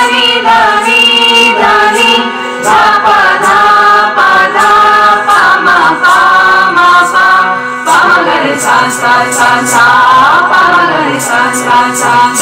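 Mixed choir of young men and women singing together, with a steady low drone held underneath the voices.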